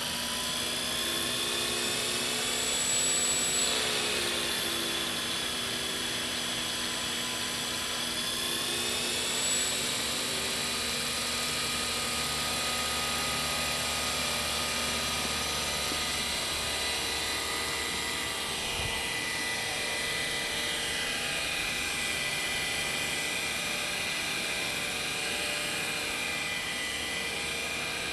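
Model synchropter RC helicopter with intermeshing twin rotors running, its motor whining and rotors whirring. The pitch rises and falls during the first ten seconds or so, then holds steady.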